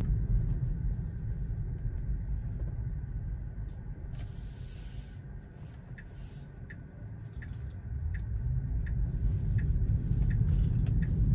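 Cabin of an electric Tesla Model 3: low road and tyre rumble that fades as the car slows to a stop at a stop sign and builds again as it pulls away. From about six seconds in, a regular turn-signal tick sounds about one and a half times a second. A brief hiss comes about four seconds in.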